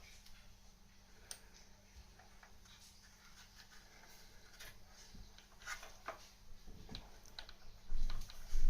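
Light, irregular clicks and ticks of small metal plumbing parts and a pipe cutter being handled, over a steady low hum, with a couple of louder knocks near the end.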